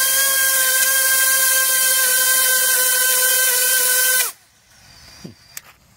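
A brushless FPV drone motor and propeller run at a steady high speed, giving a loud, even whine over rushing air, then cut off abruptly about four seconds in. The motor is still running after the stick-stall stress test on its ESC.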